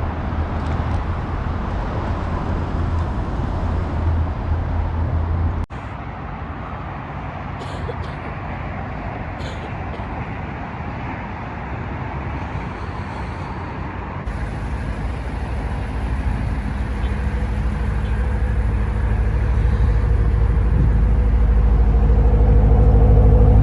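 A car driving, with steady road and engine noise; over the last several seconds the engine hum grows steadily louder.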